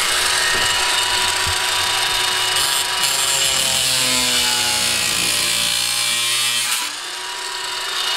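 Angle grinder running and cutting into a copper pipe coupling held in pliers: a steady, loud grinding whine. About seven seconds in the cutting eases off and the grinder runs on more quietly.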